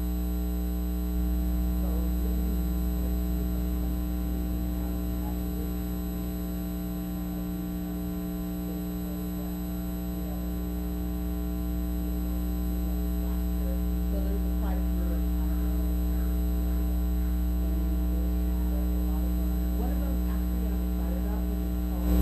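Steady electrical mains hum with its overtones, with faint, indistinct voices underneath.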